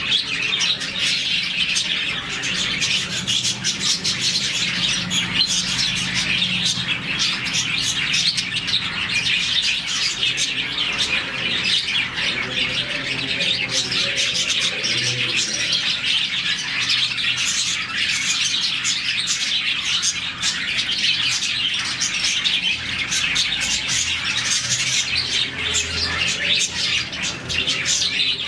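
A colony of budgerigars, about forty birds, chirping all at once: a dense, unbroken chatter of many overlapping chirps.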